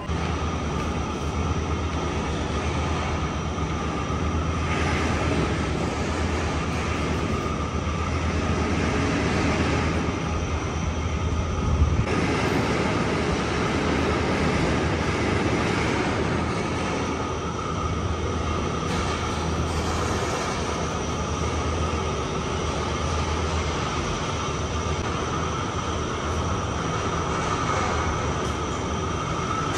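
Steady city street noise: a continuous low mechanical rumble and hum, with a brief knock about twelve seconds in.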